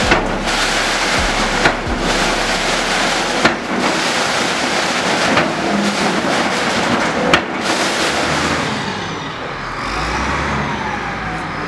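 Tata Hitachi EX210LC excavator demolishing a masonry building: engine running under a dense crash of breaking wall and falling rubble, with several sharp cracks. After about eight seconds the din gives way to a quieter, steadier background.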